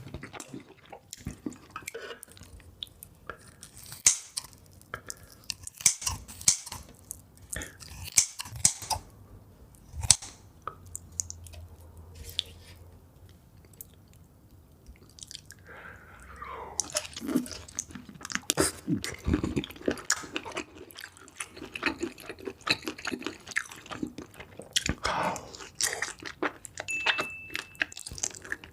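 Close-miked mukbang eating sounds: wet chewing, smacking and crunching of spicy seafood, with a run of sharp snaps and crackles, a few of them louder.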